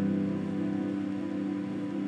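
Background music: a held, calm chord that slowly fades.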